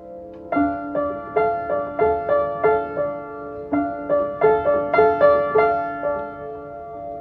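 Music: a keyboard plays a melody of single struck notes, each fading, about three a second, over a held chord. The melody comes in two phrases with a brief pause between them, then settles back onto the held chord near the end.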